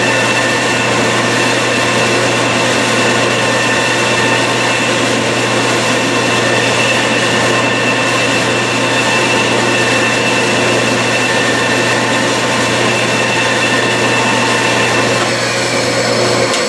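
Bridgeport milling machine's spindle running steadily, turning an aluminium workpiece against a tool bit held in the vise, with a constant hum and high whine. Near the end the motor is switched off and the whine starts to fall as the spindle winds down.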